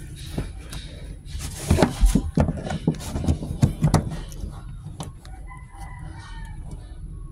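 A quick run of sharp plastic clicks and knocks lasting about two and a half seconds, from car interior trim panels and their clips being pried off and handled.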